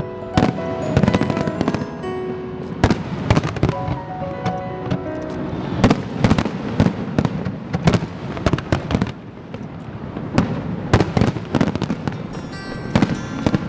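Aerial fireworks shells bursting, repeated sharp bangs about one or two a second, with a dense crackling cluster near the end. Music plays underneath.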